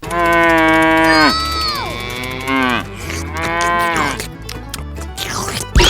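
Cow mooing: three long calls, each held and then dropping in pitch at the end. A sharp knock sounds just before the end.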